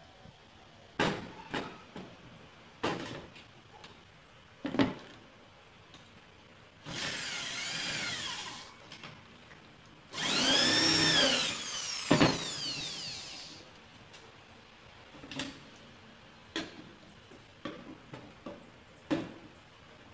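Handheld electric drill running in two short bursts at a cabinet hinge, the second louder, its pitch rising and falling as the trigger is squeezed and let off. Sharp knocks and clicks of tools and wood being handled come before and after.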